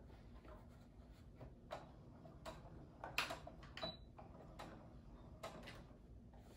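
Faint, irregular clicks and taps from hands handling fabric at a sewing machine, with two louder clicks a little past the middle.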